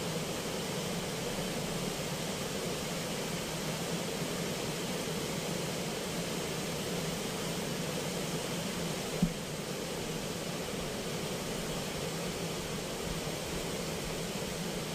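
Steady rush of water pouring through the open gates of a weir and churning in the outflow below. One short sharp click about nine seconds in.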